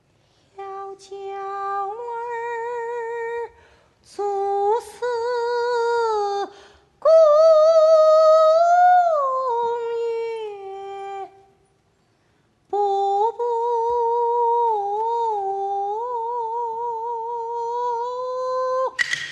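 A woman singing unaccompanied in Peking opera style, a high voice holding long notes with a slow, wide vibrato, in four phrases broken by short pauses. The instrumental ensemble breaks in at the very end.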